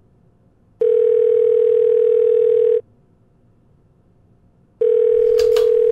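Telephone ringback tone heard down a phone line while a call rings unanswered: a steady low electronic tone lasting about two seconds, then after a two-second pause the same tone starts again near the end.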